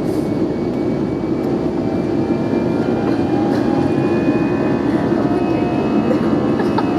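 Steady cabin noise of an Airbus A320 in flight: a constant jet engine and airflow rumble, with a few faint high whining tones on top that rise slightly.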